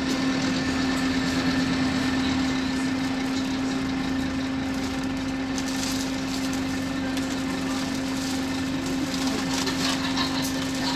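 Scania K230UB bus's rear-mounted five-cylinder diesel engine running with a steady drone, heard from inside the passenger saloon.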